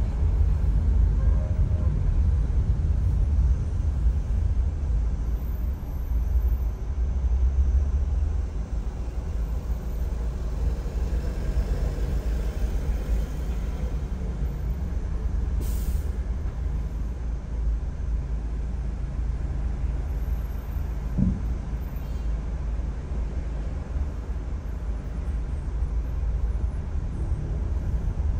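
Steady low rumble of a car driving on an expressway: road and engine noise.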